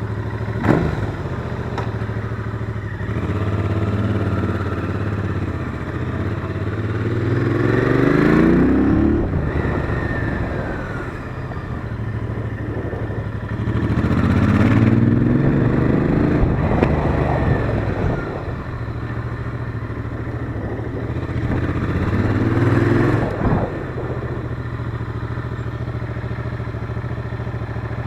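Royal Enfield Interceptor 650's parallel-twin engine running at a steady low note, revving up three times, each time rising in pitch over a few seconds and then dropping back. A sharp click about a second in.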